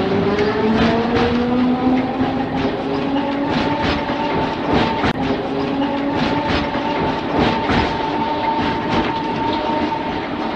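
Mumbles Railway electric tramcar pulling away: a motor whine rising in pitch over the first couple of seconds and then holding steady, with the wheels clicking over the rail joints.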